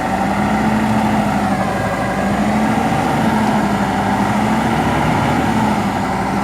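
Heavy diesel truck engine running steadily with an even drone while hauling a heavy load.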